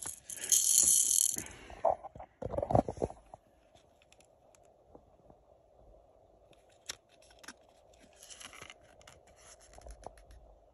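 A hand handling a plush animatronic toy and its cardboard hang tag: a loud scraping rustle about half a second in, a few knocks between two and three seconds, then light scratches and clicks.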